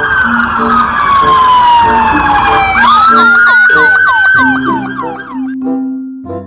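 Siren: one long wail falling slowly in pitch, then a jump up into a rising tone broken by rapid falling chirps, about four a second, which cuts off near the end. Light mallet-percussion music plays underneath.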